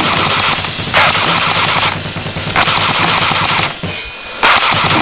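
Airsoft gun firing on full auto in about four rattling bursts, each roughly a second long with short pauses between.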